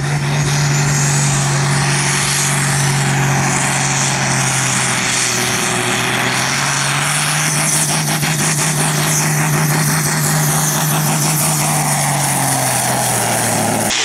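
Diesel engine of a sport-class pulling tractor running hard at high revs under full load while pulling the weight-transfer sled, a loud steady drone that sags a little partway through and then holds.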